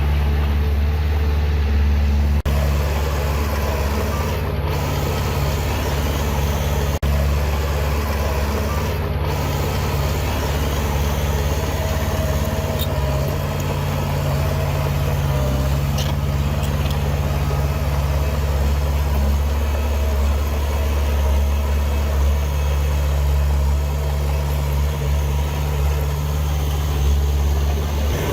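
Diesel engine of heavy earthmoving machinery running steadily, a deep continuous drone with no pauses.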